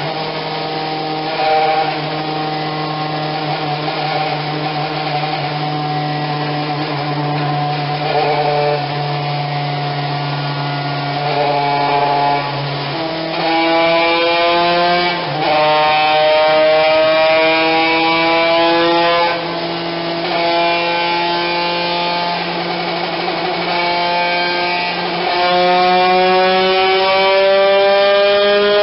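TM B racing engine with a replated cylinder, fitted in a racing mower and running on a chassis dyno. It holds a steady speed for about the first half, then pulls up in pitch several times under load, with short drops between, and climbs steadily again near the end.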